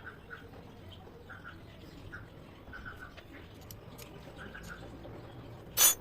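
Small birds chirping in short repeated bursts of two to four notes, over faint clicks of tools being handled and a low hum. Just before the end, one short, loud, high ringing clink.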